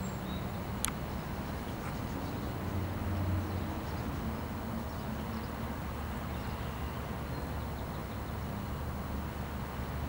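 Steady low rumble of distant city traffic, swelling briefly about three seconds in, with one sharp click about a second in.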